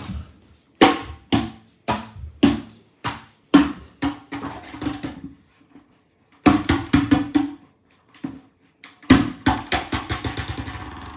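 Sharp clicks with a hollow ring, coming in irregular runs. About nine seconds in, a fast run of ticks slows and fades, like a spun wheel winding down.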